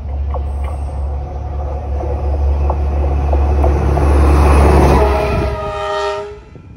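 Diesel locomotive approaching with a heavy low engine rumble and a few sharp clicks, then sounding its horn in one long blast about five seconds in.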